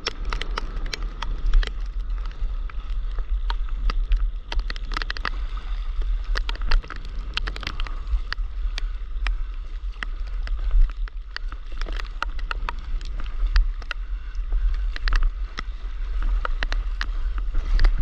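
Wind buffeting an action camera's microphone on a paddleboard at sea, with many irregular sharp ticks of water drops striking the camera housing.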